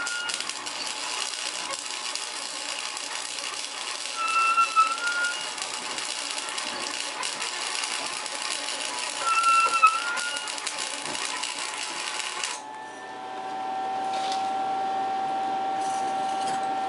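Electric arc welding on steel tubing: the arc crackles and sizzles steadily, then stops about three-quarters of the way through. A steady hum remains after it stops.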